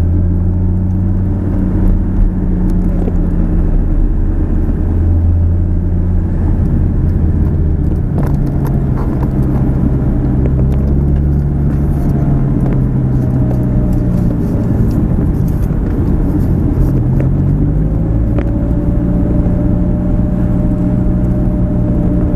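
Lamborghini Gallardo's V10 engine running steadily at low speed, heard from inside the cabin. The engine note changes about eight seconds in.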